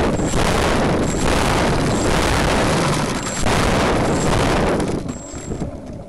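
RC Wot 4 model aircraft engine running loud and distorted through the on-board camera's microphone, then cut about five seconds in, the sound falling away as it winds down.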